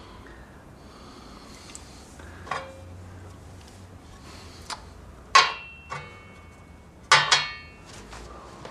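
Hard objects clinking and knocking a few times, each clink with a brief high ring. The loudest comes about five seconds in, followed by two in quick succession about two seconds later.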